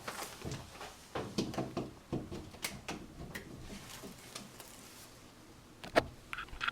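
Scattered knocks and rattles of handling as the Vinotemp VT60 wine fridge is switched on, then one sharp, loud click about six seconds in.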